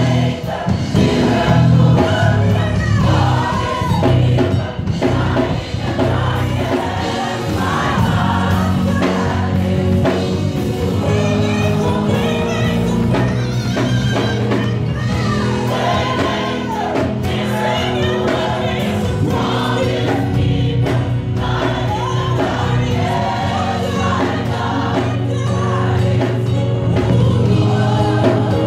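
Gospel choir and a female lead singer performing a worship song, the voices moving over steady low held notes of accompaniment.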